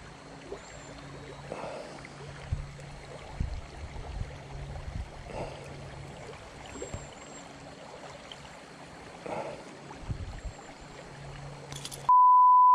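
River water running over a shallow rocky riffle, with a few faint clicks of needle-nose pliers working at a hook caught in a hand. Near the end a loud, steady, single-pitched electronic beep cuts in for about a second.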